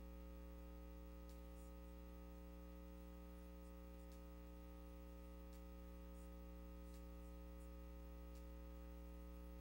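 Near silence with a steady electrical mains hum and a few faint ticks.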